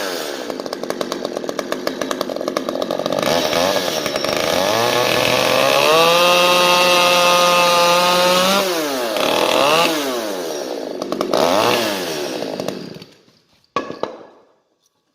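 Husqvarna T435 top-handle two-stroke chainsaw revving up and down while cutting a 45-degree notch in a small piece of wood. It holds steady at high revs for a few seconds mid-way, is blipped a few more times, then stops near the end.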